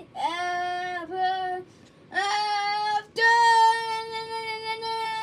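A child singing a short tune: a few held notes stepping upward in pitch, then one long held note near the end.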